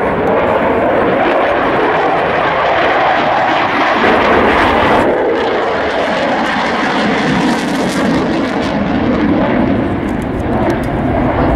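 Aircraft engine noise from a fixed-wing display aircraft in flight, loud and continuous. About five seconds in, the sound loses some of its high end.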